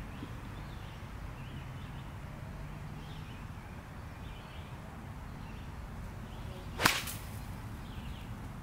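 A golf pitching wedge swung with a short swish, striking the ball with one sharp crack about seven seconds in.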